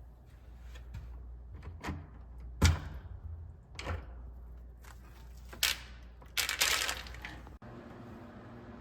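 A handful of sharp knocks and clatters of something being handled, the loudest about two and a half seconds in and a quick cluster near the end, over a low steady hum that cuts off suddenly.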